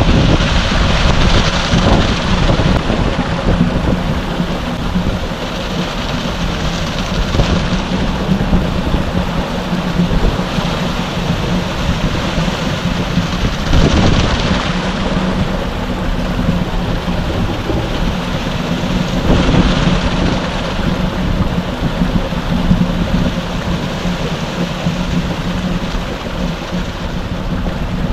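Concrete mixer truck running with its engine at a steady hum while the drum turns, and wet concrete rushing down the discharge chute into a tremie hopper. The rushing swells a few times as the flow surges.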